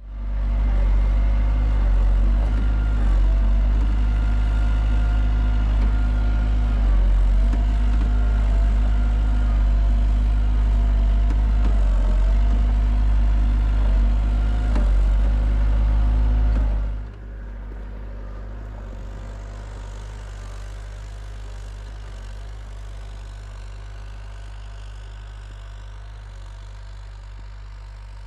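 Skid steer engine running steadily with small shifts in pitch; about seventeen seconds in it drops sharply to a quieter, steady hum.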